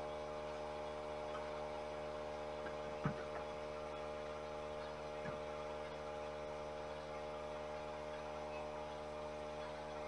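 Steady electrical mains hum, with a faint knock about three seconds in and another a couple of seconds later.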